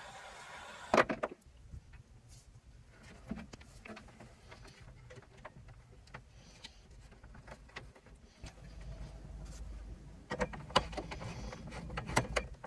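A steady hiss from a small heat tool shrinking an insulated wire terminal cuts off with a loud click about a second in. Then come scattered small clicks and knocks of wire connectors and a ring terminal being handled and fitted onto a DC-to-DC charger's terminal posts, louder near the end, over a low rumble.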